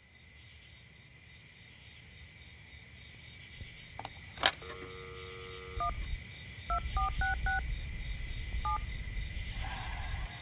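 Touch-tone telephone dialing sound effect: a click, a held tone for about a second, then a quick run of short dialing beeps and one more beep a second later. Under it, a steady high hiss fades in and a low rumble swells.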